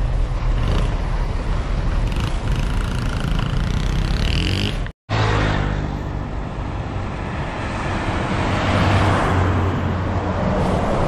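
Large coach buses and road traffic: a bus engine rumbling at low speed, then after a short break, highway traffic with a coach's diesel engine droning as it approaches, and a rising rush of tyre and wind noise as it passes near the end.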